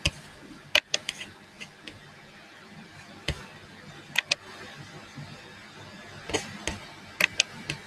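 Irregular sharp clicks and taps, some single and some in quick runs of two or three, over a faint steady hum.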